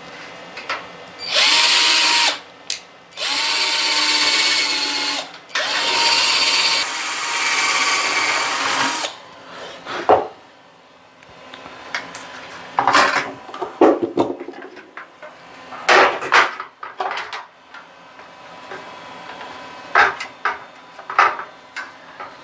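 Electric drill boring a hole for a pop rivet, run in three bursts (the last about three seconds long), its motor whine dipping slightly each time as the bit bites. After that come a series of scattered clicks and knocks.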